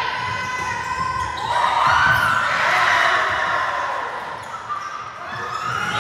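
Gym sounds of an indoor volleyball match: ball hits and voices echoing in a large hall. The sound swells louder from about one and a half to four seconds in.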